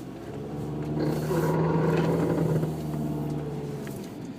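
Mitsubishi Outlander under slow, light acceleration, heard from inside the cabin: a steady droning hum that swells about a second in and fades toward the end. This is the strange noise the owner is chasing, still present even with the intake off.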